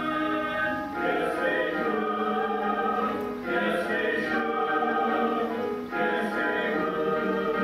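Music of a choir singing held chords that change every second or two.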